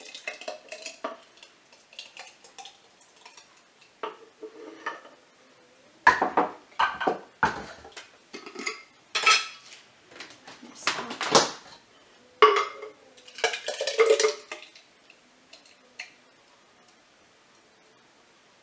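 A spoon scraping and clinking against kitchen containers as salsa is transferred into a jar: a string of separate knocks and taps, light at first, then louder and closer together in the middle, dying away over the last few seconds.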